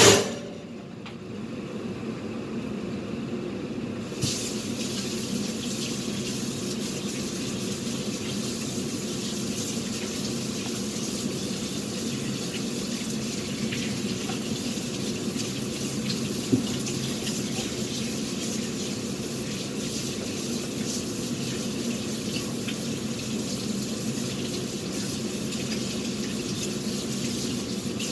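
A thump as the oven door is shut, then about four seconds in a tap is turned on and water runs steadily from it, with one brief knock partway through.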